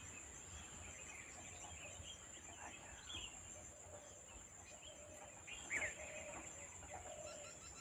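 Forest ambience: a steady high-pitched insect drone, with short bird calls now and then, loudest about six seconds in.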